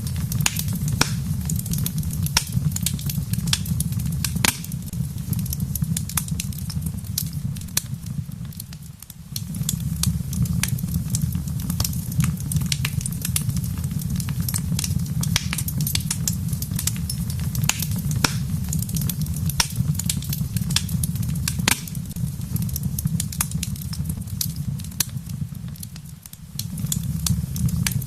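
Wood fire in a fireplace crackling, with frequent sharp pops and snaps over a steady low rumble. The sound dips briefly twice, about a third of the way in and again near the end.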